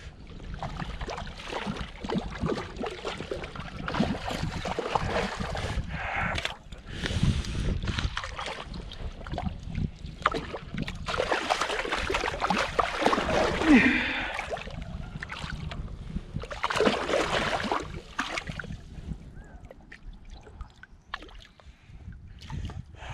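Water splashing as a hooked trout thrashes at the surface and is drawn into a landing net; the loudest splashing comes about halfway through as the fish is netted, and it settles down near the end.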